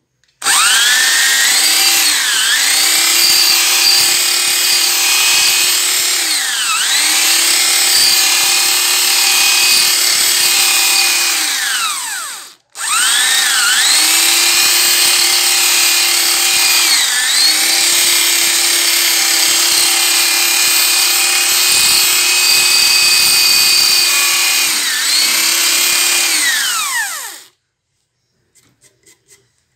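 Bench drill press with a square-hole hollow chisel adapter boring a square mortise in wood. The motor runs with a steady whine and drops in pitch several times as the chisel bites into the plank under load, then recovers. It cuts out briefly about halfway through, runs again, and stops near the end.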